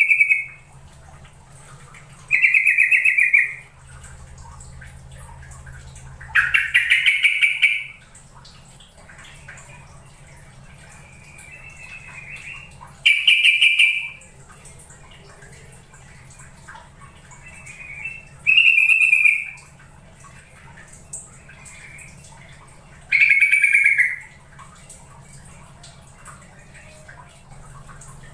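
Yellow-vented bulbul (trucukan) calling: six short, loud phrases of quick bubbling notes, each about a second long, repeated every four to six seconds.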